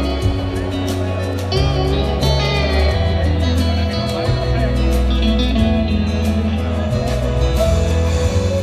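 Live rock band playing, with an electric guitar solo of sustained, bending and wavering notes over bass, drums and acoustic guitar.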